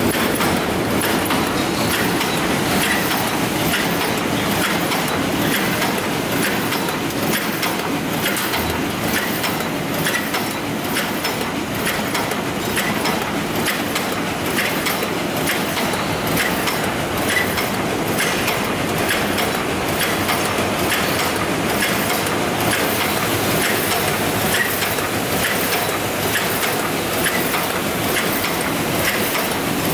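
Gearbox-driven paper cup forming machine running at production speed: a steady mechanical clatter with a regular, repeating click as the mould turret indexes.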